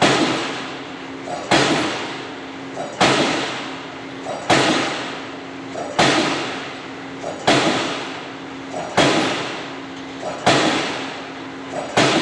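Diesel pile hammer driving a concrete spun pile: loud, evenly spaced blows about every one and a half seconds, each with a smaller click just before it and a ringing tail, over a steady low hum.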